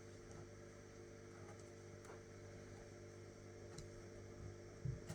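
Near silence: faint steady electrical hum of room tone, with a few soft clicks.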